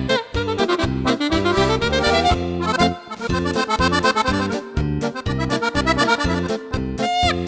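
Background music with a steady beat, with a rising slide in the melody about a second in.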